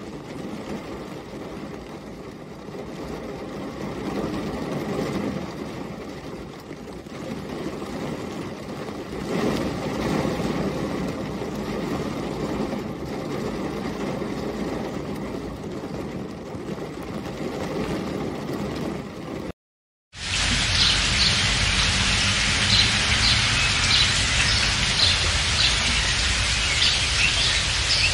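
Rain pattering on a car's windscreen, heard from inside the car as a dull, steady patter. After a brief break of silence about twenty seconds in, it changes to louder, hissing heavy rain with birds chirping through it.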